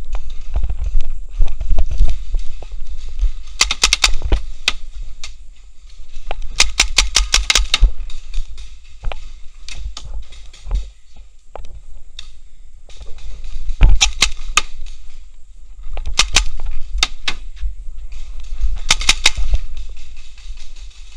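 Paintball markers firing in quick bursts of shots, about five bursts, the longest a rapid string of about eight shots about seven seconds in, over a low rumble on the microphone.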